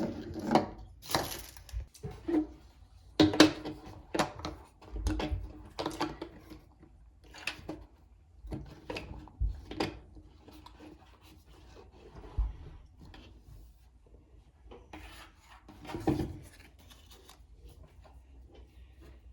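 Hands handling a miniature-toy surprise ball and its small plastic pieces and wrapping: irregular rubbing, rustling and light clicks.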